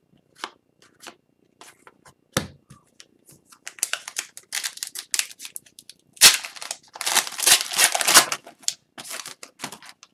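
Trading cards being handled, with light clicks and flicks, then an Upper Deck foil card pack being torn open and its wrapper crinkled. The crinkling is loudest about six to eight seconds in, followed by more card flicks.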